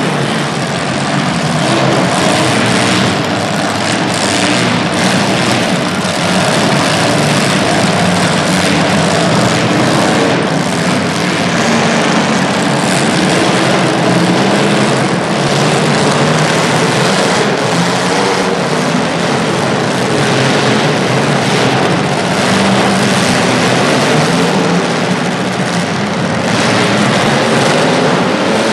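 Several small demolition derby cars' engines running hard and revving together, with occasional knocks of cars hitting.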